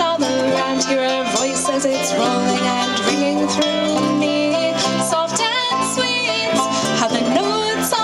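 Strummed ukulele playing a folk-song accompaniment, with a wavering melody line held over it.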